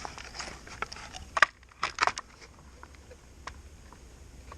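Sharp clicks and knocks of a small recovered plastic-and-metal device being handled and worked open, the loudest a little under a second and a half and about two seconds in, then a few faint ticks.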